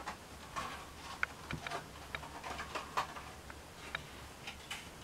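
Light, irregular clicks and taps of a model jet's plastic canopy and cockpit insert being handled in the hands.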